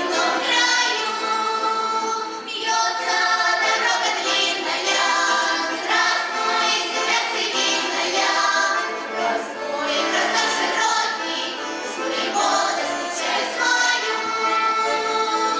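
Children's and teenage folk ensemble singing a Russian folk song in chorus, girls' and boys' voices together.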